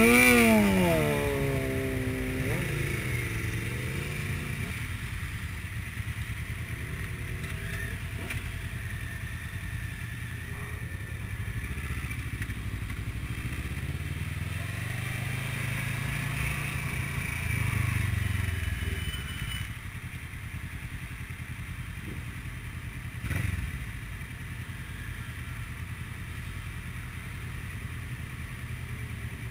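Sport motorcycle engines: one revs hard right at the start, its note climbing and then dropping away. Engines then idle and rumble at low speed, with another engine note slowly rising and falling about halfway through as bikes pull off.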